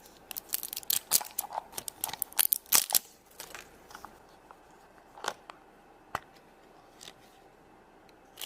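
Toy packaging crinkling and tearing as a blind-pack surprise is opened by hand: a dense run of crackles, then a few separate clicks.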